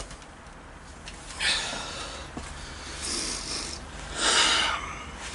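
Three short, hissy breaths close to the microphone, the loudest about four seconds in.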